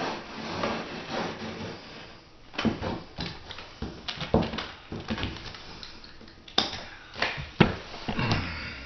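Sheet vinyl flooring being trimmed with a utility knife and worked down to the floor by hand: irregular rustles, crinkles and knocks, a handful of them sharper than the rest.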